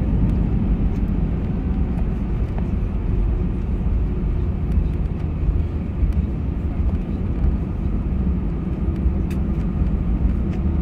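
Cabin noise inside an Airbus A319 rolling out on the runway after landing: a steady low rumble from the wheels and engines, with faint scattered clicks.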